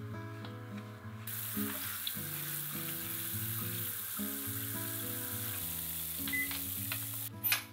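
Soy sauce, sake and mirin sauce boiling and sizzling in a small nonstick wok as it is stirred with a spoon. The sizzle sets in about a second in and cuts off suddenly near the end, followed by a sharp knock. Soft guitar music plays underneath.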